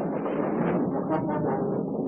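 A rough, noisy, roaring monster cry from a kaiju fight soundtrack.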